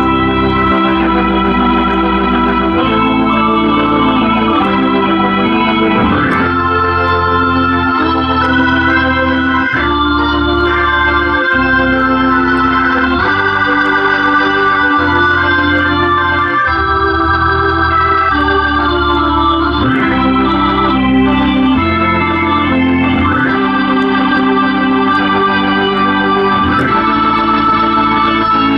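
Hammond B3 tonewheel organ played with both hands: sustained chords over a bass line that moves to a new note about every one to two seconds.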